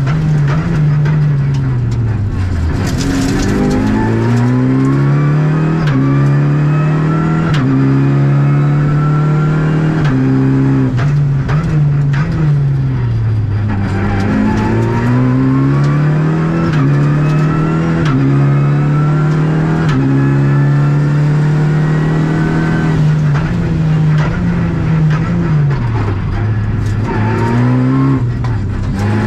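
Renault Clio Rally5's turbocharged 1.3-litre four-cylinder engine driven hard, heard inside the cabin. Revs climb and snap down with quick upshifts, then fall away three times as the car slows for corners. Sharp cracks come here and there.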